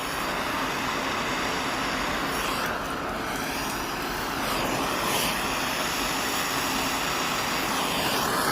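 Plumber's soldering torch burning steadily, heating a copper fitting to soldering temperature so the solder draws into the joint.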